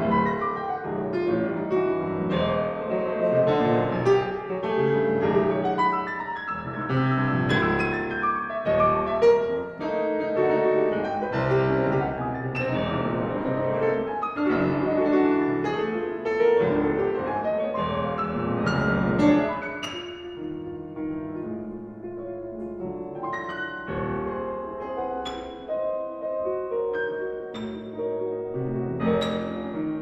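A grand piano played four hands, two pianists at one keyboard, in a dense stream of rapid notes. About two-thirds of the way through it turns quieter, with sparser single notes and chords.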